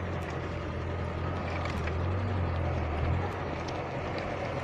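Car engine running steadily, heard from inside the cabin, as the car drives through floodwater up to the bonnet, with water noise around the body and a few faint clicks. The engine hum swells a little about halfway through.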